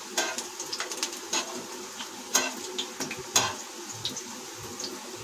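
Imarti frying in hot oil in an iron kadhai: a steady sizzle, broken by a few sharp clicks of a metal utensil against the pan, about one a second, as the pieces are turned.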